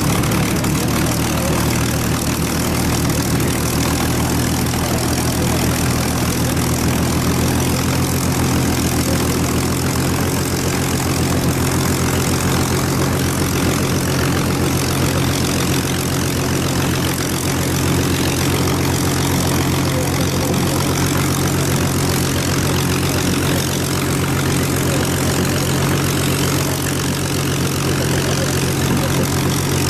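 Rolls-Royce Griffon V12 engine of a five-bladed Supermarine Spitfire running steadily at low, idling power as the fighter taxis.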